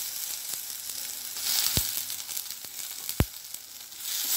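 Chopped onions, tomatoes and green chillies sizzling in hot oil and ghee in a steel kadai. Two sharp knocks come about a second and a half apart, the second louder. Near the end the sizzling grows louder as a spoon starts stirring the vegetables.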